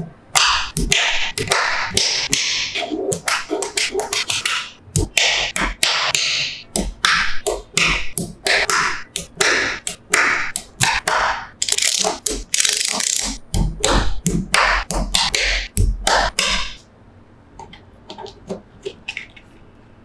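Small magnetic balls clicking and clattering as strips of them snap onto a flat sheet of balls: dense rapid clicks and short rattles, thinning to a few faint ticks near the end.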